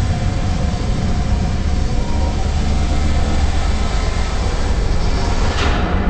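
Experimental electronic sound design: a dense, continuous rumbling noise with a heavy low drone. Just before the end a sharp noisy burst flares up, and then the high hiss drops away.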